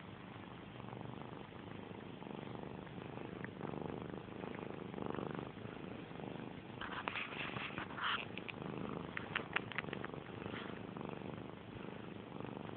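Kitten purring steadily while suckling on cloth, with clusters of short clicks about seven seconds in and again around nine to ten seconds.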